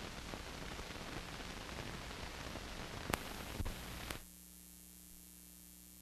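Steady hiss and crackle of an old 16mm film soundtrack with nothing on it, with two sharp clicks about three seconds in. A little after four seconds the hiss drops away, leaving a faint low hum.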